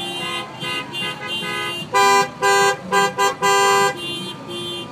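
Car horns honking in a parking lot: quieter horns sound on and off throughout, and about two seconds in a much louder horn gives five blasts in a row, two medium, two short and one long.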